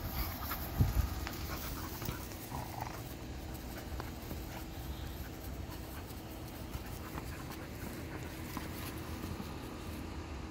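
Two young dogs playing over a ball: panting, with faint knocks and scrapes of teeth and paws on the ball and one louder thump about a second in.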